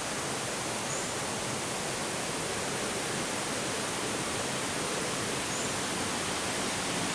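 Water rushing steadily down a small jungle waterfall, a constant even hiss of falling and running water.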